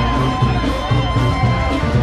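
Loud music with a steady, repeating bass line.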